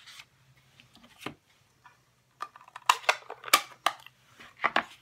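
A run of sharp plastic clicks and taps as a Stampin' Up! ink pad in its plastic case and a clear acrylic stamp block are handled and set down on the craft mat, thickest about three seconds in.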